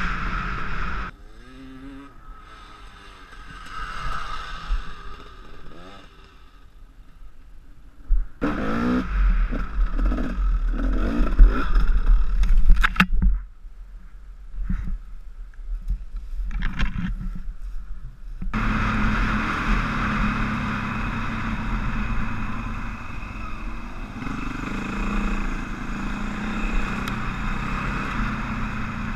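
Enduro dirt-bike engine heard from the rider's helmet: it runs and revs with clattering and scraping over rough ground. It drops away for about five seconds of scattered knocks while the bike lies on its side, then runs steadily again for the last ten seconds.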